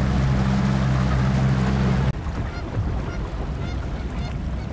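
Boat motor running steadily, cut off abruptly about two seconds in. After that a flock of birds calls over the water, many short calls overlapping.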